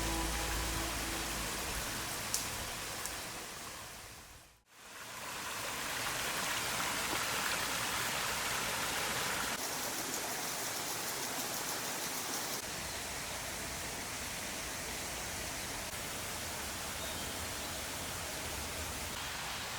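Steady rush of a mountain stream flowing. Background music fades out at the start, and the sound drops to silence briefly about four and a half seconds in.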